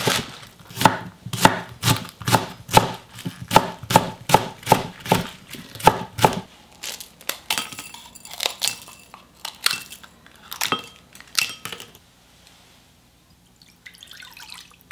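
Kitchen knife chopping green onions on a wooden cutting board, about two sharp chops a second. After about six seconds this gives way to sparser, softer snips of scissors cutting dried red chillies, and the last few seconds are nearly quiet.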